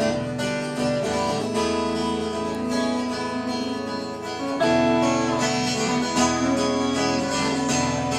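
Acoustic guitar strumming chords as an instrumental introduction to a song, growing louder about four and a half seconds in.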